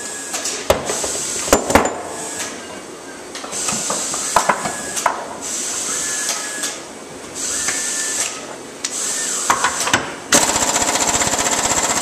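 Knocks and clicks of tools being handled at a steel bench vise. About ten seconds in, an Ingersoll Rand 231C pneumatic 1/2-inch impact wrench starts hammering rapidly and steadily on the nut of a 1-inch bolt, working to break loose a nut tightened with a cordless impact wrench.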